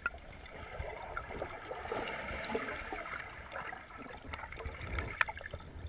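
Swimming pool water heard from underwater as a child swims down to the bottom: a muffled low rumble of stirred water with scattered small bubble pops and clicks.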